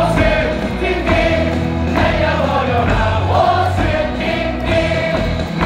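Baseball stadium crowd singing a batter's cheer song together over loud amplified stadium music with a steady bass line.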